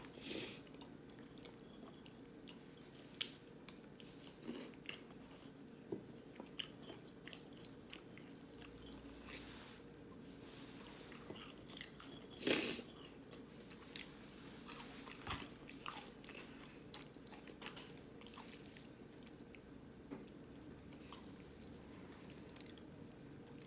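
A person chewing and biting food: soft mouth sounds with scattered small clicks and smacks, and one louder bite or smack about twelve seconds in.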